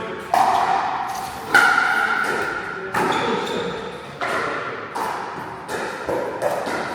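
Pickleball paddles striking a hard plastic ball in a rally: a sharp pock roughly every second, each ringing briefly and echoing off the hall.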